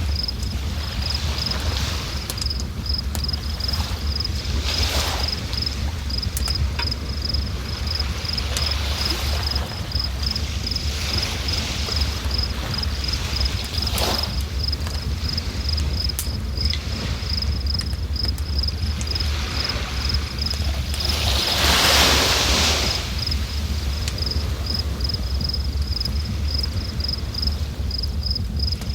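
River water rushing steadily with a deep low rumble, swelling louder a few times, most strongly about two-thirds of the way through. A steady, rapid, high-pitched pulsing sounds over the water throughout.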